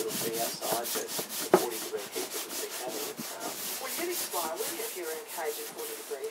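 A hand scraper blade scraping along oiled hardwood in quick repeated strokes, about four a second, lifting leftover paint before the next coat of oil.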